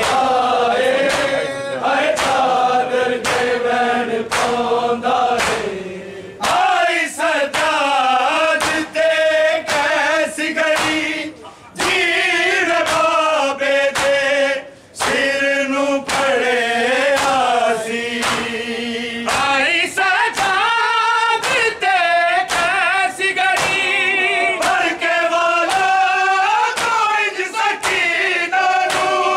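Men singing a Punjabi noha (Shia lament) together in chorus, with a steady rhythm of open-hand slaps on bare chests (matam) keeping the beat.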